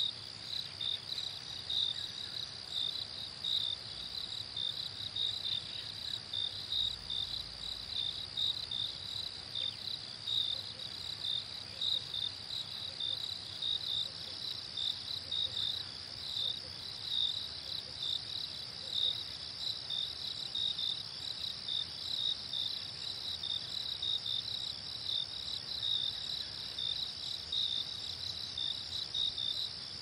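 Crickets chirping: a steady high trill with a second, pulsing chirp repeating at an even rhythm just below it.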